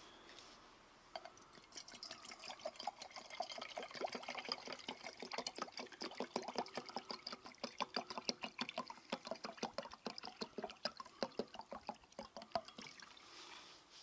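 Water poured from a plastic bottle into an enamel mug, glugging out of the bottle's neck in rapid pulses. It starts about a second in and stops shortly before the end.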